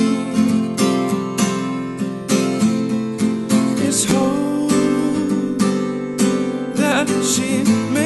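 Acoustic guitar strummed in a steady rhythm, with a man singing over it in a live solo acoustic performance.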